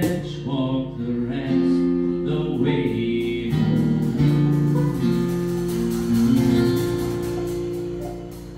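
Folk trio of banjo, acoustic guitar and cajon playing the closing bars of a song. The strumming stops and the last chord rings and fades away near the end.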